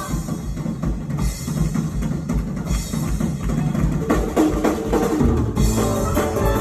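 Band music led by a drum kit playing a steady beat, with regular bass-drum thumps and snare. Pitched instruments join in about four seconds in.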